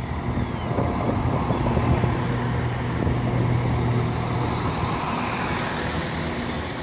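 CrossCountry Class 170 Turbostar diesel multiple unit moving slowly past along the platform, its underfloor diesel engines running with a steady low hum over the rumble of the train.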